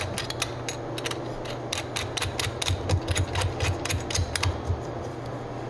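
Quick run of light metallic clicks, about four or five a second, as a metal locknut ring is turned by hand onto the threads of a Romex cable clamp in a dishwasher's sheet-metal electrical box; the clicking stops about four and a half seconds in.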